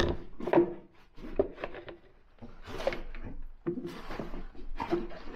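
Irregular metallic clicks, knocks and scraping of a grease gun's coupler being worked onto a grease nipple on a flail mulcher, with a quieter gap about a second in.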